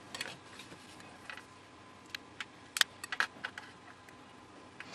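Metal tweezers picking at a small liquid-filled plastic gas-sensor cell: a handful of small sharp clicks and ticks around the middle, the loudest about three seconds in, over low room noise.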